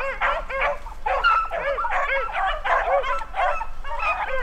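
A pack of beagles baying as they run a rabbit, many overlapping short yelps and bawls one after another with no break.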